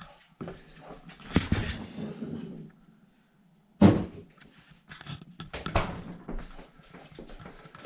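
Knocks, thuds and rustling as the camera is handled and moved about a kitchen, with two loud sharp thumps, about a second and a half in and about four seconds in.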